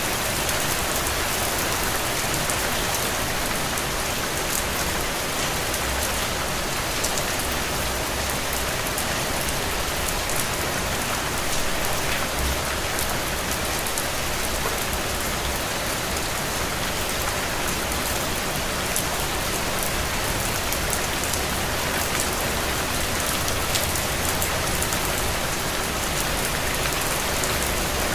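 Steady rain falling on a window, an even hiss of water with many small drop ticks.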